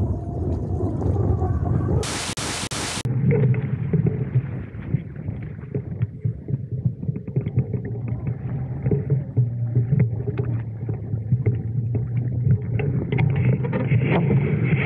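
Wind rushing over a camera mounted on the kite line: a steady low rumble with gusty buffeting. About two seconds in there is a one-second burst of loud hiss.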